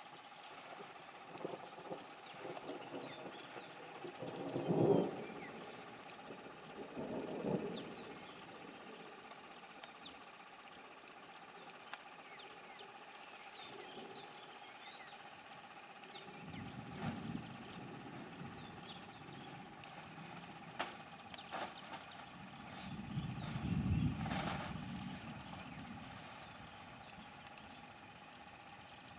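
Insects chirping in an even, steady high pulse, with a few unidentified low swells of sound, the loudest about five seconds in and again near the end.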